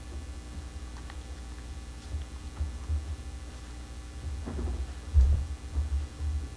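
Low steady hum with faint rustles and clicks of a book being handled, then several low thumps about five seconds in.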